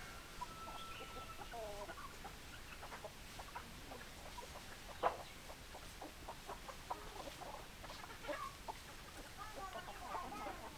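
Hens clucking: many short, overlapping clucks and brief calls, with one sharp click about five seconds in.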